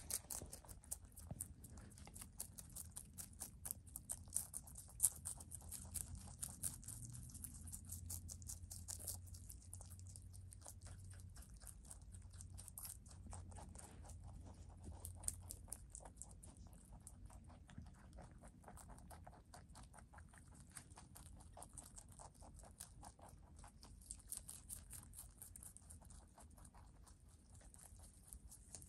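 Two rabbits chewing leafy greens such as lettuce and parsley: a quick, continuous run of soft, crisp crunches.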